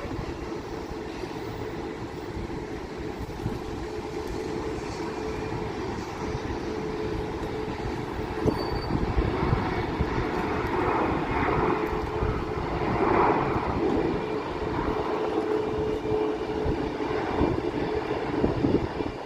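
Steady vehicle drone with a held hum, swelling about halfway through and easing off, over low wind rumble on the microphone.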